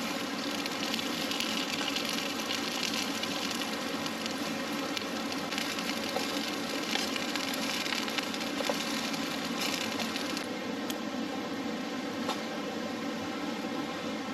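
A campfire crackling with a few sharp pops, over a steady hiss of night background noise.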